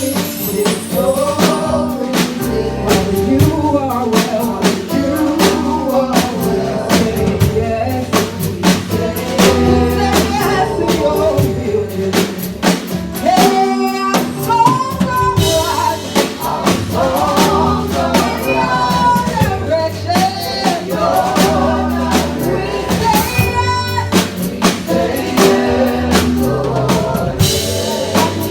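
Live worship music: a band with drum kit and bass playing under sung melody lines, with a steady drum beat.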